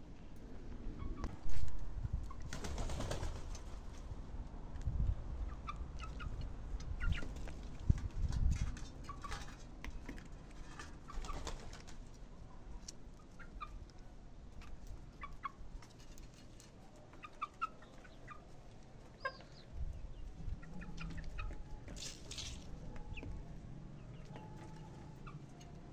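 Chickens clucking now and then in short, scattered notes, with a few brief rustling noises. There is a single loud knock about a second and a half in.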